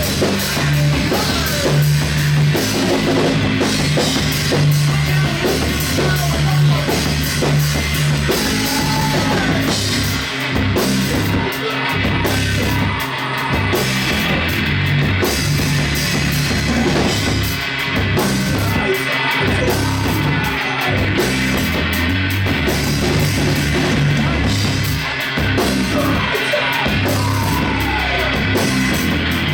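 A live rock band playing loud, with drum kit, electric guitars and bass.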